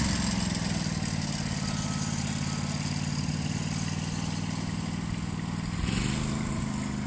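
An engine running steadily, with a brief rise in level about six seconds in.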